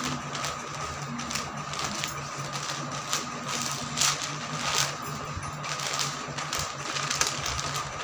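Damp cloth wiping a plastic mat laid on a wire refrigerator shelf: a run of irregular rubbing and scraping strokes with small clicks.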